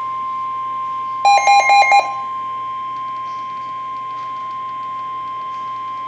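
NOAA Weather Radio 1050 Hz warning alarm tone: a single steady, piercing tone that signals a warning message is about to follow. About a second in, a quick run of louder electronic beeps sounds over it for under a second.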